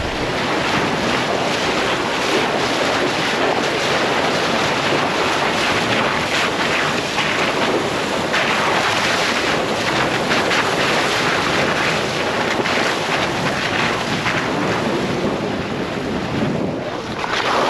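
Steady rushing noise of wind buffeting the microphone of a camera mounted outside a Ford Bronco, mixed with its tyres churning through shallow creek water.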